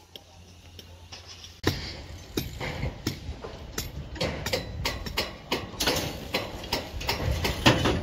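Irregular metallic clinks and knocks of steel tools against a rebar mat, a few per second, starting about a second and a half in and loudest near the end.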